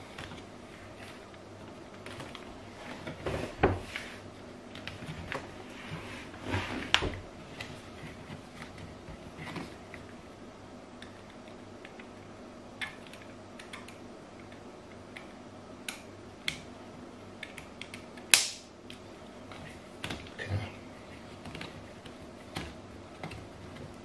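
Hands working a metal jubilee clip (worm-drive hose clamp) on a corrugated plastic washing-machine drain hose while loosening it: scattered small clicks and rustles, with a few busier handling noises in the first several seconds and one sharp click well past halfway as the loudest.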